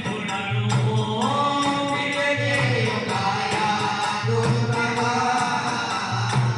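Devotional bhajan singing: a solo voice holding and gliding through long sung notes over a steady drum beat with jingling tambourine-like percussion.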